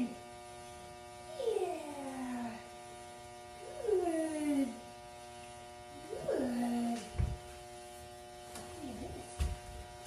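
A large dog whining: three drawn-out moans, each falling in pitch, over a steady electrical hum. A couple of low thumps come near the end.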